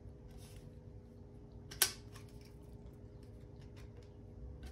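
One sharp click about two seconds in as the clear plastic intake tube sections of an AquaClear filter are handled and pushed together, over a faint steady hum.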